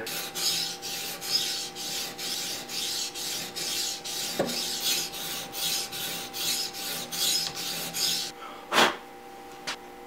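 Edge Pro 400-grit sharpening stone stroked quickly back and forth over the blade of a pair of poultry shears clamped in the scissor attachment, about three strokes a second, grinding metal off a badly dulled edge. The strokes stop about eight seconds in, followed by a knock and a small click.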